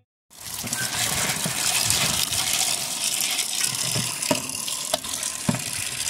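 Tap water gushing into a metal basin of beans while a hand stirs them, washing the beans, with a few short clicks in the second half.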